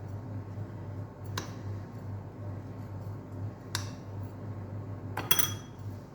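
Lemons being pressed and packed into a small glass jar: a few light clicks and knocks of fruit and hands against glass, with a louder clink near the end, over a steady low hum.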